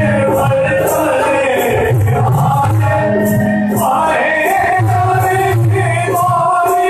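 Live Hindu devotional song (bhent) sung by a man to harmonium accompaniment, with rhythmic percussion strokes keeping a steady beat.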